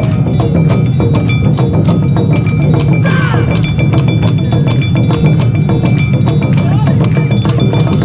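Awa Odori festival band playing: taiko drums beating a quick, driving rhythm with a small hand gong (kane) clanging over it. A few shouted calls rise above the music about three seconds in.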